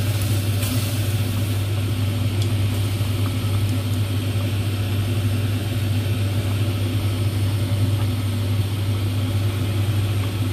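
Steady low hum with a constant hiss over it, unchanging throughout, like a kitchen motor running.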